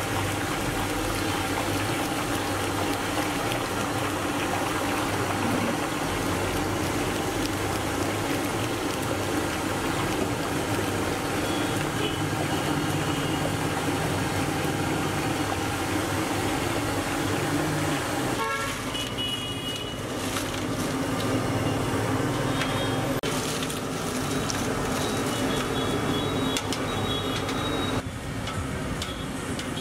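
Potato slices sizzling as they deep-fry in a large pan of hot oil, over street traffic noise. Vehicle horns toot a few times in the second half.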